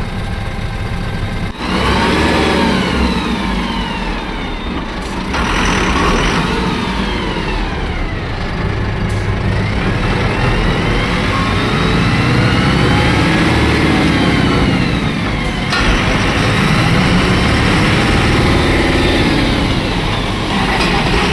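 Diesel truck engine revving, its pitch rising and falling slowly several times, with abrupt cuts between passages.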